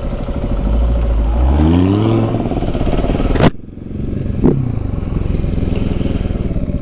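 Vehicles pulling away from a stop: a sports-car and motorcycle engine note rises in pitch over about two seconds as the Audi R8 and the KTM 690 supermoto set off, over a steady pulsing engine. A sharp knock comes about three and a half seconds in.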